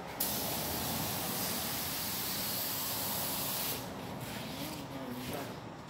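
Compressed-air paint spray gun hissing steadily as black paint goes onto a pickup truck body. The spray stops about four seconds in, then comes in short on-and-off bursts.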